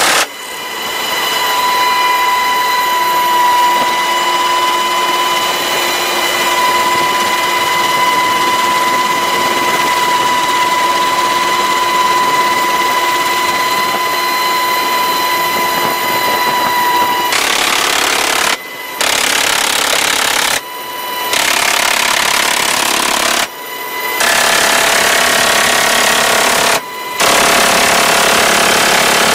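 Inside an HH-60 Pave Hawk helicopter: loud, steady helicopter noise with a high whine for the first half or more. From a little past halfway, the door-mounted 7.62 mm minigun fires a series of long, continuous bursts, each broken off abruptly by a brief pause.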